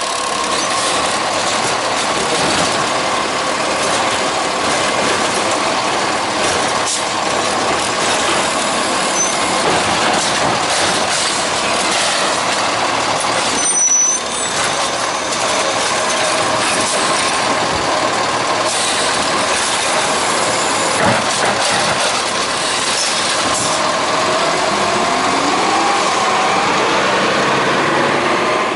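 Peterbilt 520 garbage truck with a Heil STARR automated side-loader running at the curb: the engine and the arm's hydraulics run continuously with a steady high whine. In the last few seconds the pitch rises as the truck pulls away.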